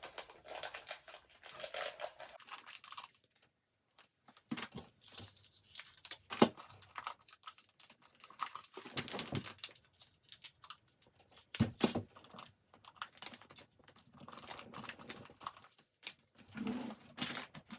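Plastic candy packaging crinkling and rustling in the hands, with scattered light clicks and taps as small items are set into a plastic toy bulldozer basket; two sharper knocks stand out, one about six seconds in and one near twelve seconds.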